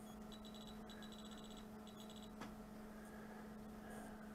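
Faint steady electrical hum, with short runs of faint, rapid high-pitched ticking in the first half and a single soft click about two and a half seconds in.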